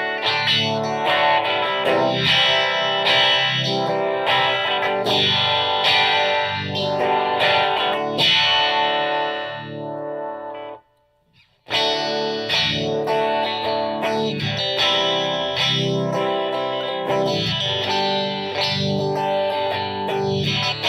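Clean electric guitar, a Les Paul coil-tapped to single-coil tone, played through a Moen Shaky Jimi uni-vibe pedal set to a slow rate, the notes swirling with a slow, sweeping throb. About ten seconds in the playing stops for under a second, as the pickup selector moves from the bridge position to the middle, and then it starts again.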